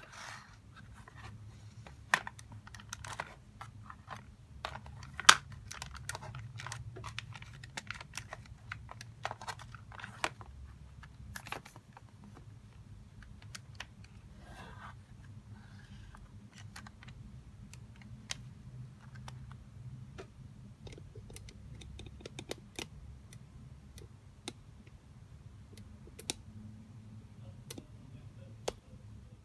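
Small plastic model pieces being handled and fitted together, giving irregular clicks and taps, the sharpest about five seconds in, over a low steady hum.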